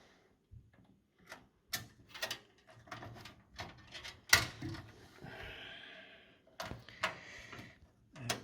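A screwdriver and a small screw clicking and tapping against metal as a motherboard screw is fitted into a PC case. Sharp clicks come at irregular times, the loudest about four seconds in, with a scratchy stretch around five to six seconds in.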